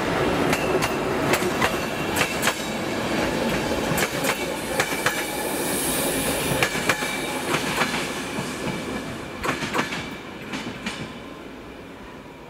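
BDZ passenger train behind a Škoda class 44 electric locomotive rolling past on the station track: a steady rumble with wheels clacking over the rail joints and a thin squeal of wheels. The sound fades from about ten seconds in as the last coach moves away.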